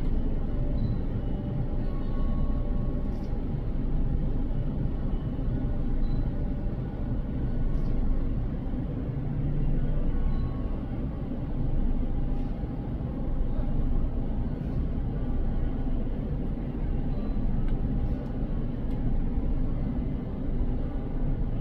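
Steady low rumble of a distant regional jet's engines as it moves along the runway.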